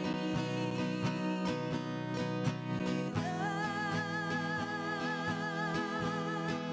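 Acoustic guitar strumming in a steady rhythm. About three seconds in, a long held melody note with vibrato comes in over it.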